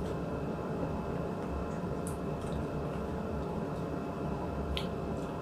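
Close-miked eating: wet chewing and mouth smacks, with a few sharp clicks about two seconds in and near the end, over a steady low background hum.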